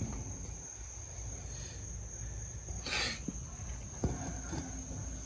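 Steady high-pitched insect trill, typical of crickets, over a low outdoor rumble, with a short hiss about three seconds in.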